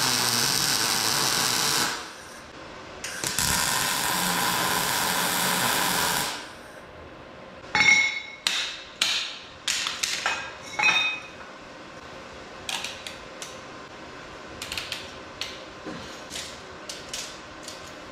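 MIG welder laying two tack welds on steel tubing, each a steady crackling hiss lasting about two to three seconds. Then a few sharp, ringing metal clanks, followed by a run of light clicks and taps.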